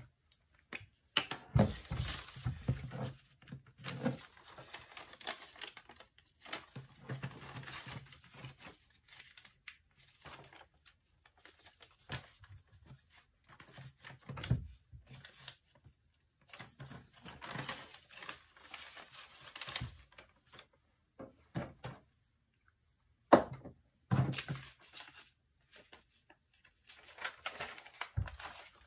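Origami paper rustling and crinkling as it is handled and creased by hand, in irregular bursts with short pauses, with a few sharp taps.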